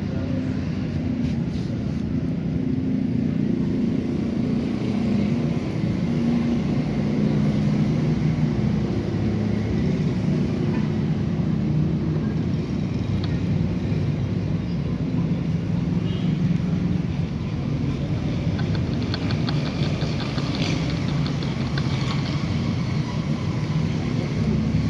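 Car engine running steadily at an even speed, with Liqui Moly Ceratec ceramic additive freshly mixed into its oil.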